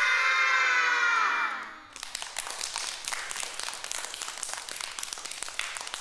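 A small group of young children cheering together, their voices sliding down in pitch. About two seconds in they switch to clapping their hands in a quick, dense patter.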